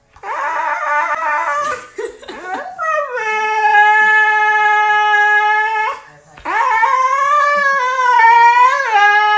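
Siberian husky howling: a short rough yowl and a few brief gliding calls, then two long howls, the first held on one steady note for about three seconds, the second wavering up and down in pitch.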